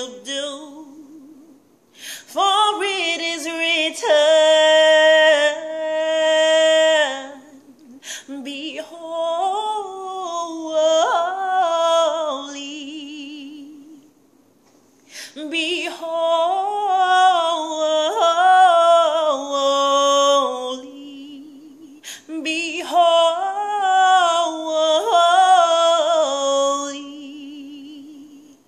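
A woman singing unaccompanied: four melodic phrases with held, wavering notes and short pauses between them.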